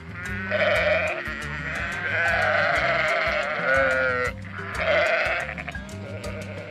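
An animal bleating three times: a short call, a long wavering call of about two seconds, then another short call. Background music with a steady beat plays underneath.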